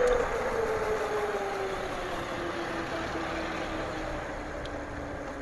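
Electric bike motor whining over wind and tyre noise, its pitch falling slowly and smoothly as the bike slows down from top speed, growing quieter as it goes.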